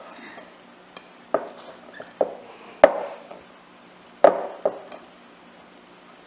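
Hands mixing crumbly rice flour and tapioca starch dough in a glass mixing bowl, the bowl giving about half a dozen irregular knocks and clinks, the loudest about three seconds in.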